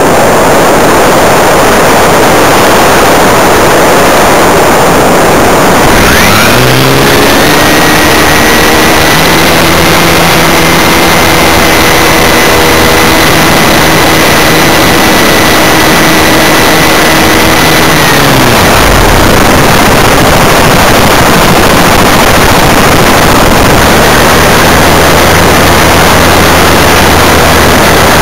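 A small aircraft's engine heard from on board under heavy wind rush. The engine note climbs about six seconds in, holds steady, then drops away about eighteen seconds in, as the throttle is opened and closed. A lower hum returns near the end.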